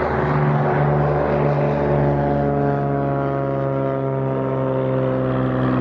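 Propeller airplane engine running at wide-open throttle: a loud, steady engine and propeller drone whose pitch drifts slowly.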